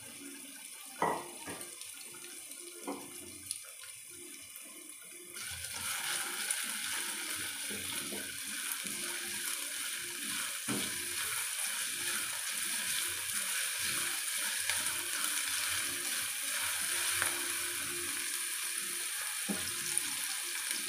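Chopped onion, garlic and bell peppers sizzling in hot oil in a steel pan, the sizzle getting louder about five seconds in, with a few knocks and scrapes of a spatula against the pan.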